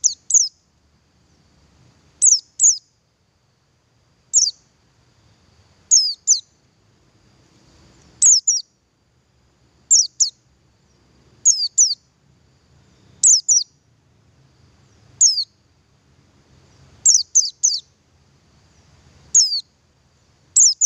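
Male buxtoni white-eye (pleci buxtoni) calling: short, very high notes that sweep quickly downward, mostly in quick pairs and once or twice in threes, repeated about every two seconds.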